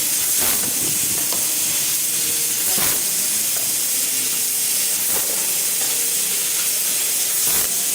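CNC laser tube cutting machine running, giving a loud, steady hiss, with a few short knocks.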